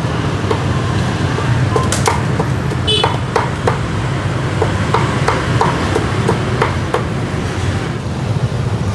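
Cleaver chopping roast pork, a run of sharp chops about two to three a second that stops about seven seconds in, over steady street traffic.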